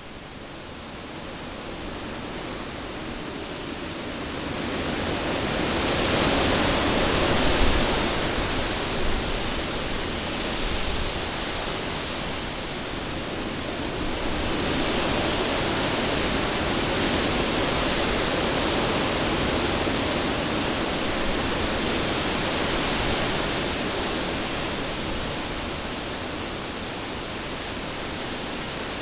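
Cyclone-strength wind blowing in long surges. It builds over the first several seconds, eases off a little, then swells again through the middle and slackens slightly near the end.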